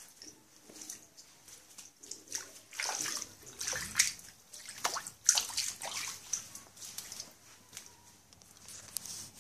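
Shallow floodwater on a tiled floor splashing and sloshing in a run of irregular splashes, loudest in the middle few seconds.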